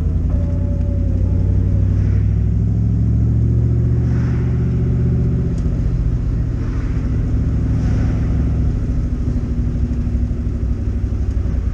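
Swapped-in Ford 4.6 L four-valve DOHC V8 in a Mustang GT running through a newly welded-up exhaust: a steady, low, heavy exhaust note with the engine speed drifting gently up and down.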